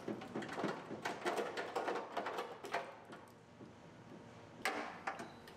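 Wiring harness being pulled out through the holes of a liftgate shell: plastic connectors and wires rattling and scraping against the metal in a quick run of clicks and rustles, easing off about three seconds in, with a few more clicks near the end.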